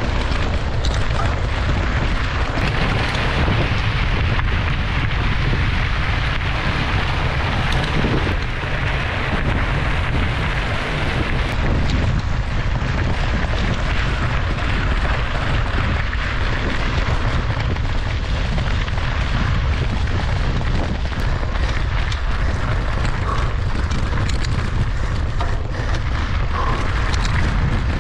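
Wind buffeting an action camera's microphone during a mountain-bike ride: a steady, loud rumble and rush with many small knocks and rattles scattered through it.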